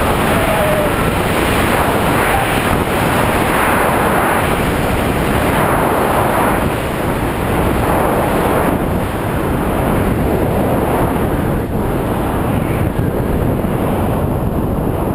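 Steady rushing wind noise on the on-board camera's microphone as the amateur high-power rocket coasts at very high altitude, easing slightly in the second half.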